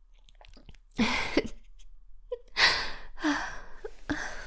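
A woman's breathy vocal sounds, three short bursts of breath about a second in, in the middle, and near the end, like gasping exhalations or soft breathy laughs.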